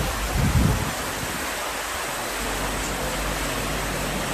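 Floodwater rushing in a steady, loud, even wash of noise, with a brief low rumble about half a second in.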